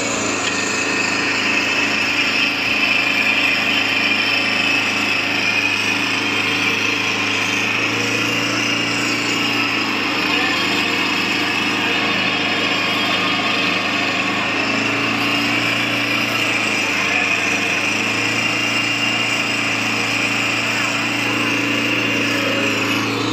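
Diesel engine of asphalt-paving machinery running steadily at constant speed, a continuous drone with a low hum and no change in pitch.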